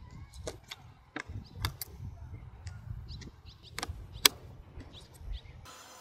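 Clicks and taps of hands handling a small 3D-printed plastic electronics bay and a LiPo battery, with one sharp snap about four seconds in as the bay cover is fitted. Wind rumbles on the microphone, and birds chirp faintly.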